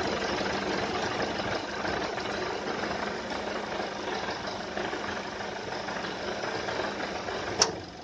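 Air-conditioning compressor running with a loud, steady mechanical noise. Near the end a single sharp click comes, and the running noise drops right after it. The owner complains that the compressor is too loud and kicks in and cuts off too often.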